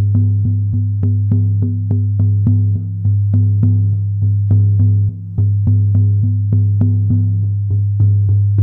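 Handmade shamanic horsehide frame drum beaten with a beater in a steady, even rhythm of about three strokes a second, its deep boom ringing on between the strokes.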